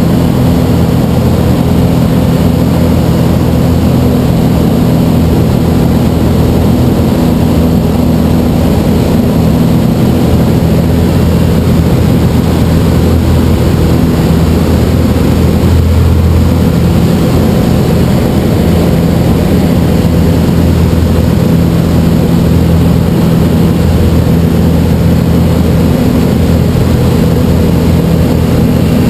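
Aeros Skyranger light aircraft's engine and propeller running at steady power in flight, heard from the cockpit: a loud, unbroken drone.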